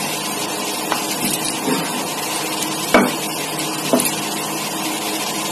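Rolling pin rolling out small rounds of dough into puris, giving a few light knocks and rubs, the clearest about three seconds in, over a steady background hiss.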